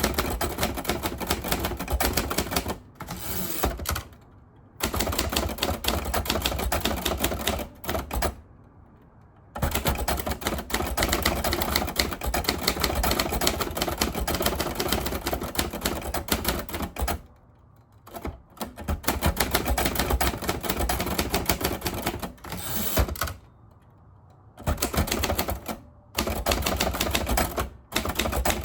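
Typing on a 1950s Royal Quiet De Luxe manual portable typewriter: rapid keystrokes in long runs, broken by four short pauses of about a second.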